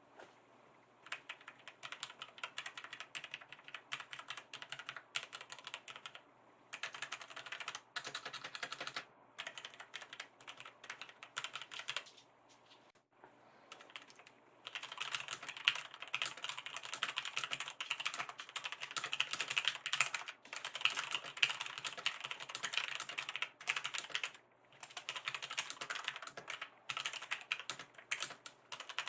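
Typing on a Logitech G512 mechanical keyboard with linear switches: quick runs of key clacks broken by short pauses, with a longer pause about halfway through, then faster, louder typing.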